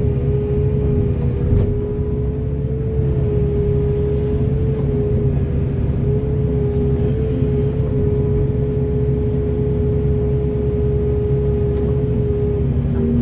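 Heavy diesel excavator engine running steadily under load, with a constant pitched whine over the low engine sound.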